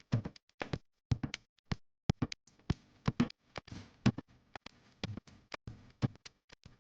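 Sharp percussion hits, about four a second and unevenly spaced, with dead silence between them: a bare drum passage with no melody.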